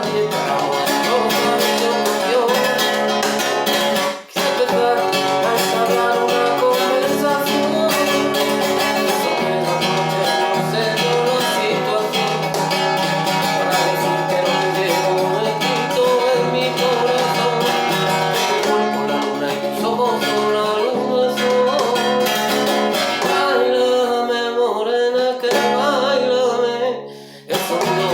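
Acoustic guitar music with plucked and strummed strings carrying a melody. It breaks off briefly about four seconds in and again just before the end.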